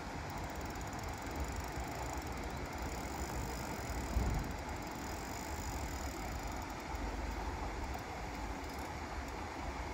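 Spinning reel on a light rod being wound, under a steady low rumble of wind on the microphone, with a brief low bump about four seconds in.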